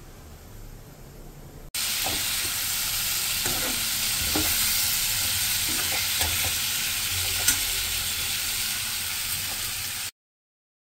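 Flat beans and potato pieces sizzling in hot oil in a kadhai while a metal spatula stirs and scrapes them, with a sharp click once. The sizzling starts suddenly about two seconds in and cuts off abruptly near the end.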